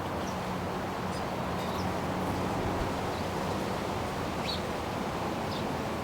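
Steady wind rushing over the microphone with a faint low hum underneath, and a handful of faint, short bird chirps scattered through.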